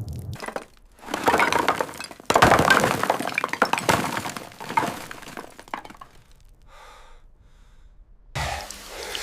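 Cracking and breaking noises in two loud bursts, the second one longer, fading into a lull.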